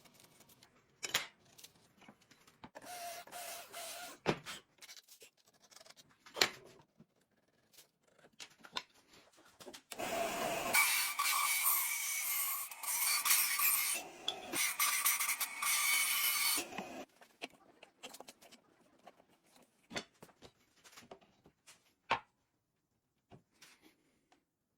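Hand and shop tools working a knife in progress: scattered taps and light scrapes, then about seven seconds of loud continuous rasping with a faint steady whine, starting about ten seconds in.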